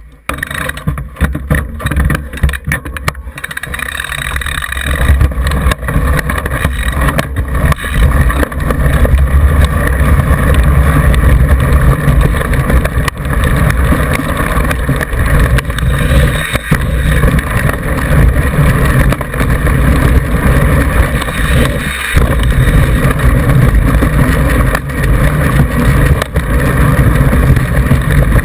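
Mountain bike descending a grass and dirt trail, heard through an action camera mounted on the front fork. Tyre rumble, rattles and wind buffeting on the microphone make a loud, continuous low rumble from about four seconds in, after a few knocks and clicks as the bike is handled and sets off.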